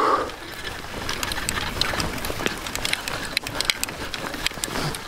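Fat bike being ridden over snowy, sandy ground, its tyres crunching with dense, irregular crackling clicks.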